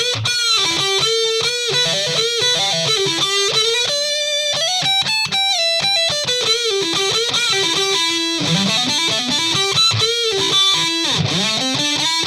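Silvertone 1303 U2 reissue electric guitar on its neck lipstick pickup, playing a distorted lead: quick runs of single notes with string bends and vibrato, through an overdrive pedal into a Marshall tube head.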